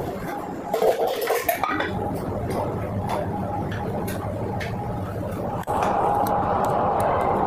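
A metal scraper scrapes and knocks on the steel freezing plate of a rolled ice cream counter, with a cluster of sharp scrapes about a second in. Then come a few scattered clinks of metal tongs on the plate as the ice cream rolls are lifted into a plastic dish, over a steady hum.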